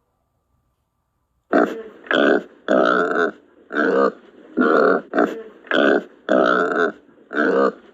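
An animal giving a run of about ten short, rough calls in quick succession, starting after a second and a half of silence.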